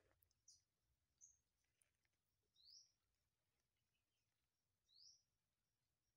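Near silence with faint bird chirps: a few short high calls at first, then two quick chirps rising in pitch, a couple of seconds apart.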